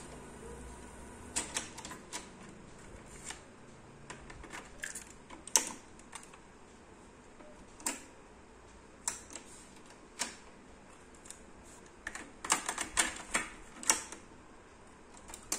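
Mechanical clicks and clunks of the Akai CS-M01 cassette deck's piano-key transport buttons and cassette door being worked while the tape is stopped: scattered single clicks, then a quick run of clicks near the end.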